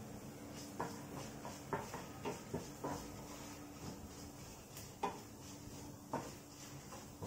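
Wooden spatula scraping and knocking in a non-stick kadai as whole spices and dried red chillies are stirred while they roast, in short irregular strokes about once or twice a second, over a faint steady hum.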